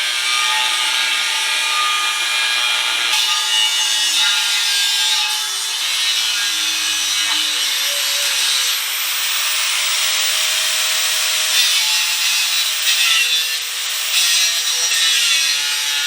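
A power tool cutting into a steel section of scrap oxygen cylinder: a loud, steady metallic cutting noise, bright and high-pitched, with many ringing tones that shift slowly in pitch.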